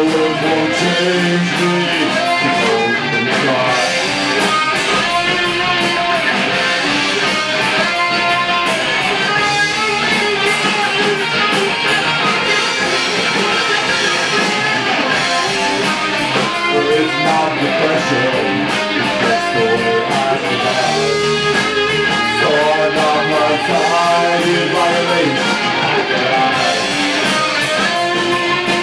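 A rock band playing live, with electric guitar through a Marshall amplifier stack and electric bass guitar, in an instrumental passage without singing.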